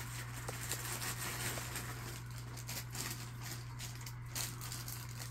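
Quiet background with a steady low electrical hum and a few faint ticks; no distinct sound event.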